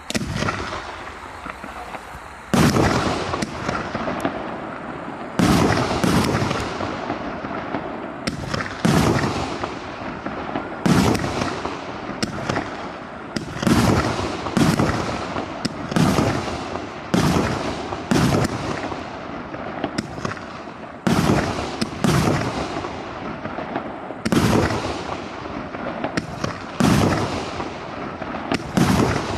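Fireworks going off in a long series of loud bangs, roughly one every second or so, each followed by a fading hiss.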